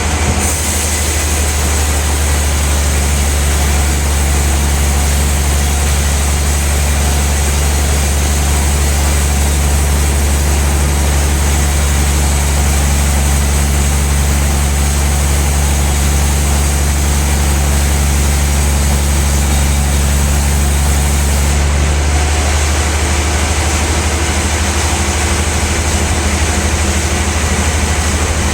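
Large log band sawmill running steadily with a loud deep hum. About three-quarters of the way through, part of the high hiss and one low tone drop away while the hum carries on.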